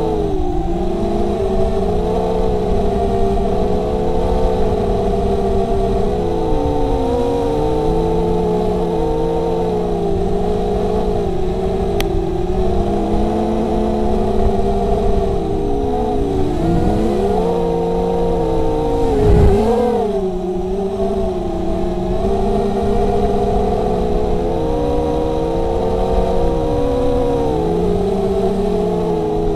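The four brushless motors and 5-inch propellers of a 250-size FPV racing quadcopter whining as it flies, heard from its onboard camera. The several motor tones rise and fall together with the throttle, and about two-thirds through they drop sharply and surge back at the loudest moment.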